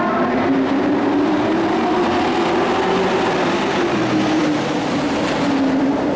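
Engines of a pack of dirt-track racing pickup trucks running together under power: a loud, steady drone whose pitch wavers slightly.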